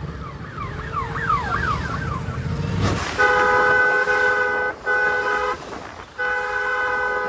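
Low traffic rumble, then a multi-tone vehicle horn sounding three times from about three seconds in: a long blast, a short one, and a third near the end.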